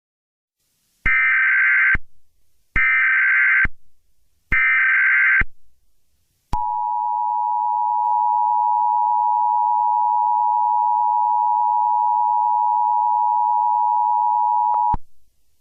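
Emergency Alert System tones: three short bursts of SAME header data noise, each just under a second with a second's gap, followed by the steady two-note EAS attention signal held for about eight seconds, which cuts off near the end.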